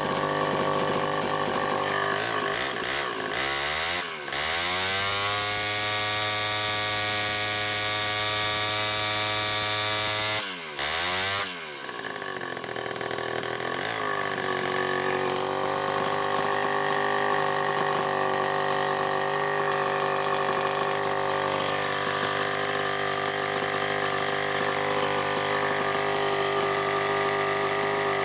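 Homelite XL-100G grinder's two-stroke engine running. It is revved up hard about four seconds in and held at high speed for about six seconds, dips and is blipped again, then drops back to a steady idle.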